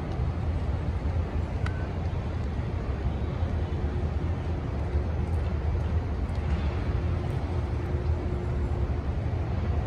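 Steady low rumble of city street traffic, with a faint held tone coming and going partway through.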